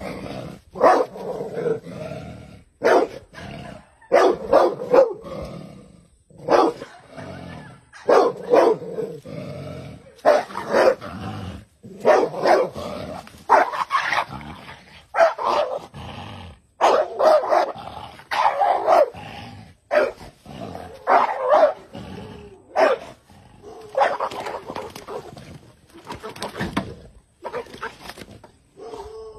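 A dog barking at a snake, in quick clusters of two to four barks with short pauses between them, over and over.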